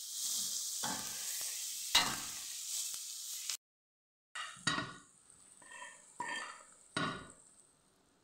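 Sheep's liver, heart, lungs and spleen with green chilies sizzling in a metal frying pan, stirred with a metal slotted spoon, with a few scrapes and a sharp clink about two seconds in. The sizzle cuts off abruptly a little past halfway, and after a short gap come several separate scrapes and knocks of the spoon in the pan as the cooked offal is scooped out.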